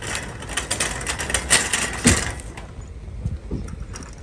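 Loaded metal shopping cart rolling over parking-lot asphalt, its wheels and wire basket rattling and clattering quickly. The rattle thins out after about two and a half seconds, over a steady low rumble.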